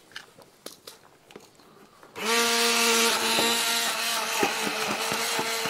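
Hand-held immersion (stick) blender switched on about two seconds in, its motor running with a steady whir as it purées boiled potatoes in their broth in a pot. From about four seconds in, sharp knocks sound over the motor.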